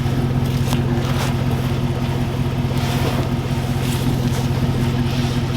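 An engine idling steadily, with a few faint knocks over it.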